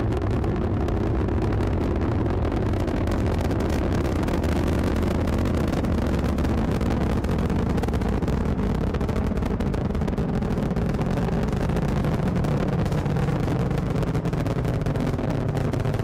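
Roar of a rocket launch, a steady loud rumble with a hissing top, used as a ringtone.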